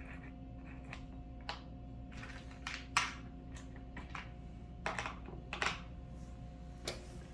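Small screws and mounting hardware being handled and sorted by hand, giving a series of light, irregular clicks and taps, the sharpest about three seconds in.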